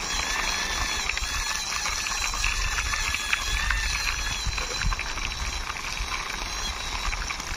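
Plastic wheels of a toy truck rolling along a rough concrete wall top as it is pushed by hand: a steady rolling noise.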